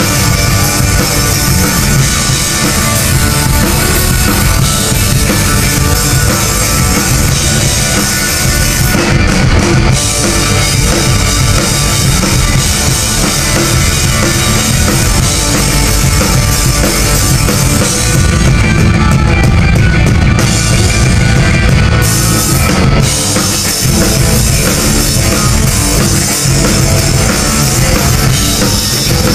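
Punk rock band playing live: electric guitars, bass guitar and a drum kit, loud and dense throughout.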